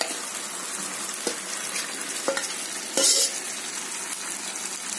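Yogurt-marinated chicken dropping into a pan of frying masala, which sizzles steadily, while a metal spoon scrapes and knocks against the bowl and pan a few times. There is a louder burst of sizzle with a knock about three seconds in.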